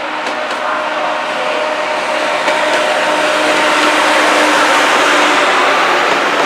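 Class 68 diesel-electric locomotive, with its Caterpillar V16 engine, approaching and passing close by with a train of coaches, growing steadily louder. Its engine note fades about five seconds in, giving way to the noise of the coaches' wheels on the rails.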